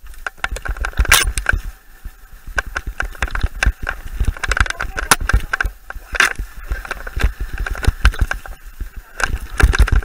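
Mountain bike ridden fast down a rough dirt forest singletrack: the bike rattles and clatters with a rapid, irregular run of knocks over the bumps, over a low buffeting rumble on the microphone. Two brief loud hissing rushes come about a second in and about six seconds in.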